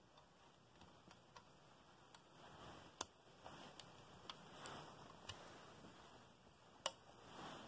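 Small plastic pieces of a toy train station being handled and pressed together, giving a scatter of light clicks, with two sharper clicks about three seconds in and near the end, over faint rustling.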